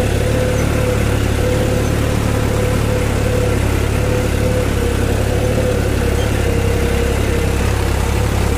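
New Holland 3630 tractor's three-cylinder diesel engine running steadily under load while pulling a harrow, heard from the driver's seat as an even rumble with one held tone above it.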